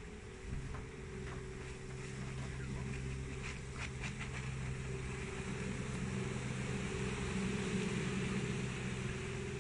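Golden Motor EZ-L03 electric outboard motor running steadily on a small boat, a constant hum with the wash of water over it, growing louder as the boat comes close. A few short clicks sound about three to four seconds in.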